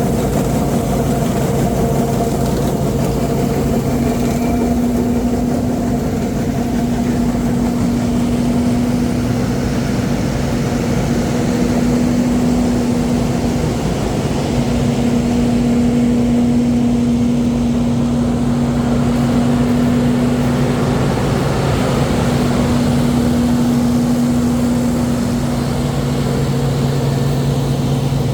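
Diesel engine of harvest machinery running steadily under work, a constant hum that shifts slightly in pitch a few times.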